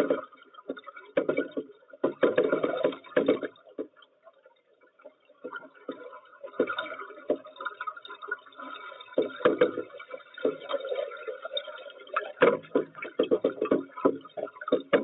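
Water sloshing and gurgling in uneven bursts, with a brief lull about four seconds in.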